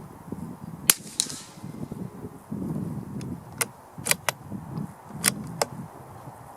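A CZ457 .22 LR rifle firing one CCI segmented hollow point subsonic round, a sharp report about a second in followed by a fainter echoing report a third of a second later. This is followed by a run of short metallic clicks from about three and a half to five and a half seconds in.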